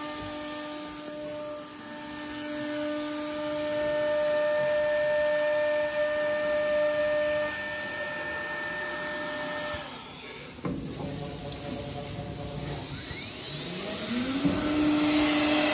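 Hinge drilling machine working a wooden door edge: the spindle motor runs at a steady pitch with a high cutting hiss, which stops about seven and a half seconds in. A sharp knock follows at about ten and a half seconds, and near the end a motor spins up, rising in pitch and then holding steady.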